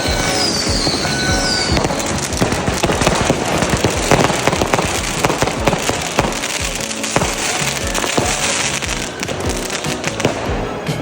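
New Year fireworks and firecrackers going off in a dense, continuous barrage of cracks and pops, with a high whistle falling in pitch in the first second or two. Music plays underneath.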